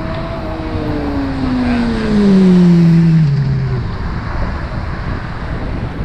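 A motorcycle passing at speed: its engine note grows louder, peaks two to three seconds in, and falls in pitch as it goes by and pulls away, over steady wind and road noise.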